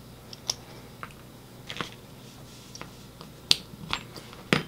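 Light clicks and ticks of small metal gun parts as the trigger spring and connector are worked off a Glock 17 trigger assembly with a punch. The clicks are scattered and irregular, with a sharper one about three and a half seconds in and another near the end.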